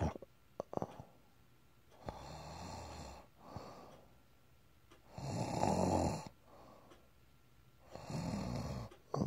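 Snoring: about four drawn-out snores, each a second or so long, the loudest about halfway through, with a few short clicks near the start and the end.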